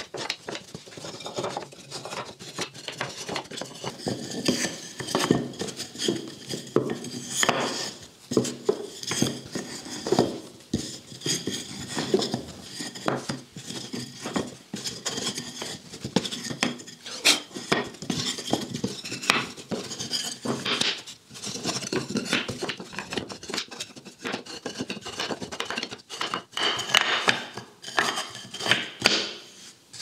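Thin wooden tambour-door slats clicking and clattering against one another and the workbench as they are handled, laid side by side and pushed together, in a run of irregular sharp knocks.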